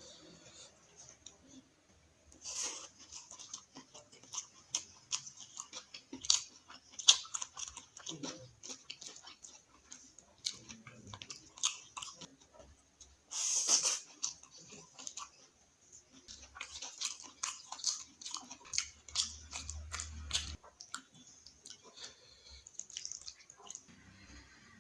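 A person chewing food close to the microphone, with frequent wet mouth clicks and smacks as a meal of dal, onion fry and egg is eaten. About halfway through there is one louder, crunchy noise lasting under a second.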